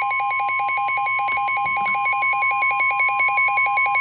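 NOAA Weather Radio warning alarm tone, a steady 1050 Hz tone signalling an incoming warning, with a rapid, evenly pulsing electronic beep sounding over it.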